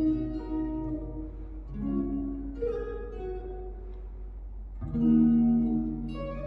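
Electric guitar fitted with Wilkinson pickups, playing slow chords that are each struck and left to ring: four chords, the loudest about five seconds in.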